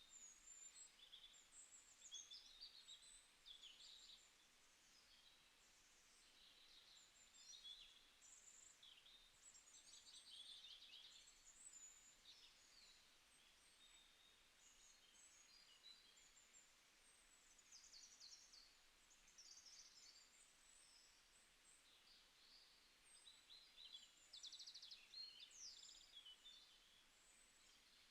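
Faint songbird chorus: many short high chirps and quick trills from several birds, overlapping continuously.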